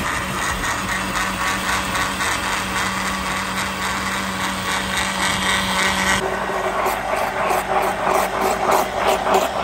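Electric blender motor running at speed, churning mint leaves in a liquid drink mix. The sound is steady, then changes character about six seconds in.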